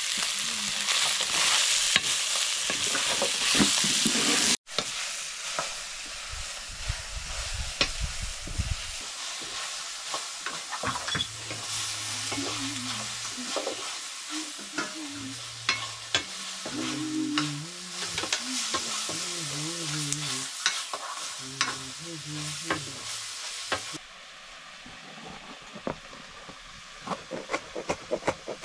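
Buffalo meat frying in a pan and being stirred: a steady sizzle with a spoon clicking and scraping against the pan. The sizzle is loudest for the first few seconds, then drops abruptly and continues more quietly.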